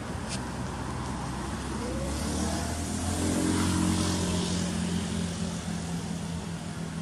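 Engine of a passing motor vehicle, a steady low hum that rises in pitch and grows louder to a peak about halfway through, then eases off.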